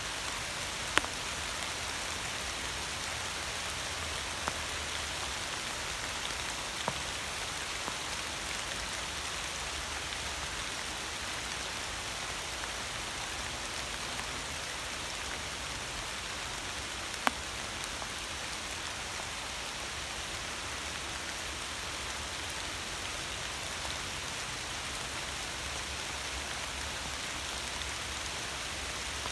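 Steady rain falling, an even hiss, with a few sharp single drops striking close by now and then, the loudest about two-thirds of the way through.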